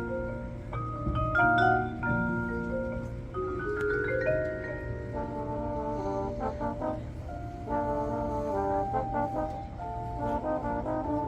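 Marching band music: mallet percussion such as marimba and xylophone plays quick rising runs, and brass chords take over in the second half.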